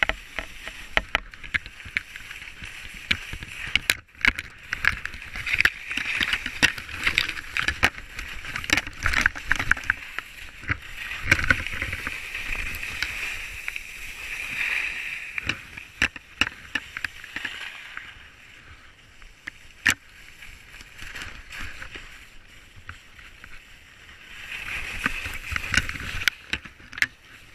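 Skis hissing and scraping over snow, a continuous rushing noise broken by many sharp clicks and knocks. It eases off for a stretch after about eighteen seconds and swells again near the end.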